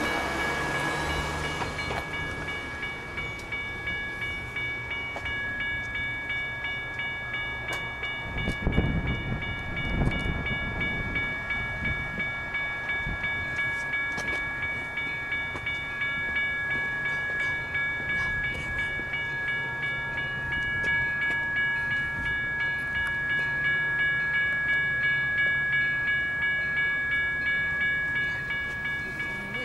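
Railroad grade-crossing warning bell ringing in a steady, even rhythm while the crossing is activated for an approaching train. A couple of low thumps come about nine and ten seconds in.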